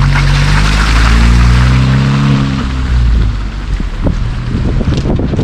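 An engine passing close by: a loud, steady hum with a hiss over it that fades out about halfway through.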